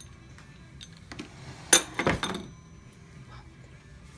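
A single sharp clink of a metal kitchen utensil against a hard surface a little under two seconds in, followed by a few softer knocks and clatters, over quiet kitchen room tone.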